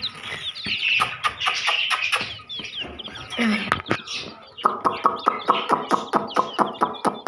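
A group of young chicks peeping. About two-thirds of the way in, a run of rapid, evenly spaced clucking calls sets in, about four or five a second.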